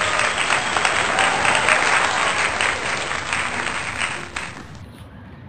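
Applause sound effect: a crowd clapping, dying away about four and a half seconds in.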